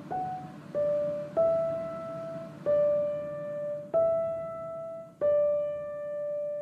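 Background music: a slow piano melody of single notes, about six in all, each struck and left to ring, the last one held and fading.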